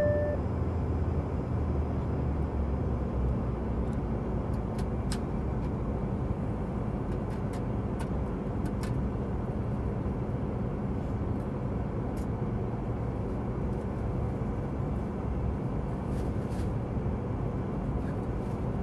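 Steady cabin noise of a Boeing 757-200 in descent, heard inside the passenger cabin: a constant low rush of engine and airflow noise with a faint hum beneath it.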